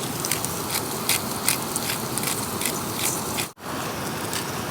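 Pork sizzling on a charcoal grill, with frequent crackling pops over a steady hiss. The sound cuts out for an instant about three and a half seconds in.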